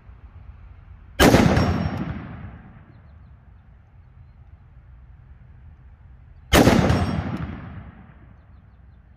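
Two rifle shots from a Ruger SFAR in .308, about five seconds apart, fired slowly one at a time. Each sharp crack is followed by a long echoing tail that dies away over about a second and a half.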